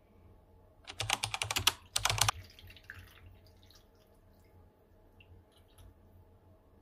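Cold broth poured from a plastic container into a glass bowl of vegetables: two quick runs of sharp, clicking splashes about a second in, then a faint trickle.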